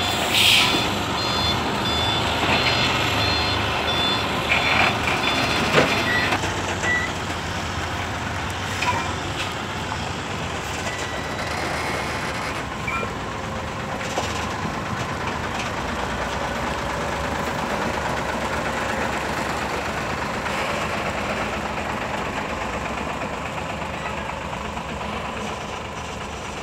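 Heavy diesel truck engine running steadily, from a Hino 500 dump truck and trailer. A reversing beeper sounds repeatedly over the first six seconds or so, with a short hiss of air about half a second in.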